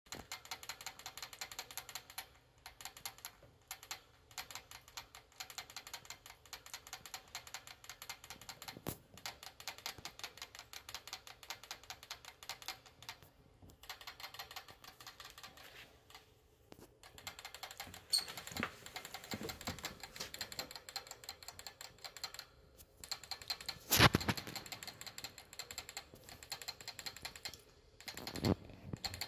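A pet rat licking at the metal sipper spout of a cage water bottle, making a rapid, steady clicking that stops briefly now and then. A single louder knock about three quarters of the way through.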